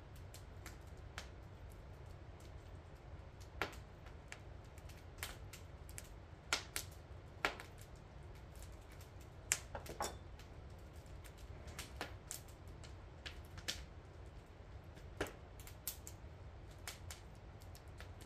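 Wood fire crackling in a brick oven: scattered sharp pops and clicks at an uneven pace, a few louder ones in the middle, over a low steady rumble.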